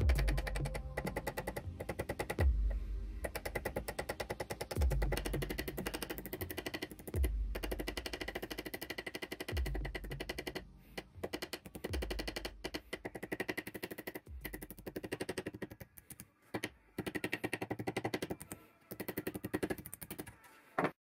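Small hammer tapping rapidly and lightly on a small curved steel piece, the hand guard of a miniature sword, held over a rod in a vise. Background music with a low beat about every two and a half seconds runs underneath.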